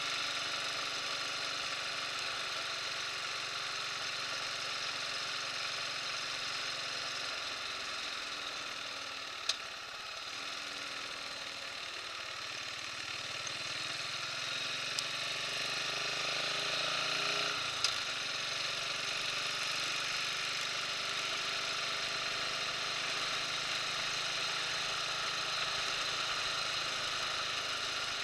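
Buell motorcycle engine running under way with a steady hiss of wind over it. The engine eases off about a quarter of the way in, then pulls up again in the middle. Two sharp clicks come midway.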